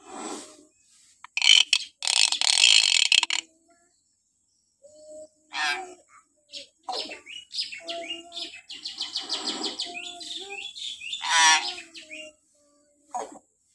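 A hill myna giving a string of shrill calls with short gaps: a loud harsh screech about 1.5 seconds in, then whistled notes, a quick chattering run and a sweeping call near the end.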